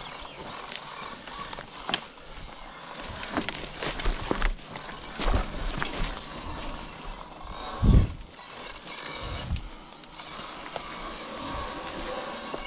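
Sur-Ron electric dirt bike rolling down a rocky dirt trail: tyres crunching over stones and the bike clattering, with scattered knocks and one heavy thump about eight seconds in.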